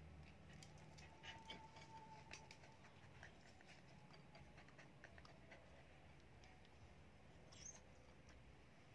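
Near silence with a dog's faint scattered clicks and scratches as it paws against a corrugated sheet and a log, and one brief high squeak about three-quarters of the way through.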